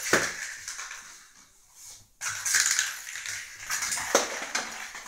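A whole walnut in its shell rolling and clattering across a ceramic tile floor as kittens bat it about, with sharper knocks as it is struck. The rattling dies down for a moment about a second and a half in, then picks up again.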